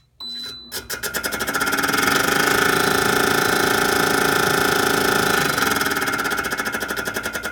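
A short beep, then the Tatsumaki TA-S18 range hood's blower fan starts and spins up to a steady, loud run with a fast rhythmic pulsing. The pulsing is the fan wheel, set too close to the housing, grinding on the metal back plate. Its pitch drops a little about five and a half seconds in.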